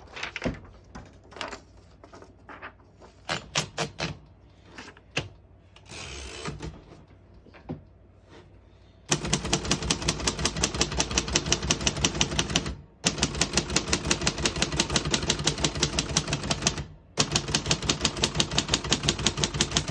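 1950 Royal Quiet De Luxe manual portable typewriter in use: scattered single key strikes and mechanism clicks, then, about halfway through, three long runs of rapid, even strikes of about nine a second, each broken off by a short pause.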